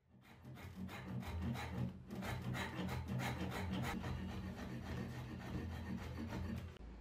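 Coarse wood rasp filing a squared wooden hammer-handle blank, with rapid repeated scraping strokes, about three a second. The filing stops shortly before the end, leaving a low steady hum.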